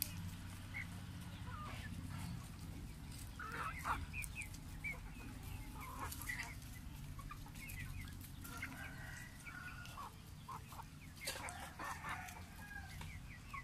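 A flock of free-range hens and roosters clucking, with short calls scattered throughout and busier bursts now and then.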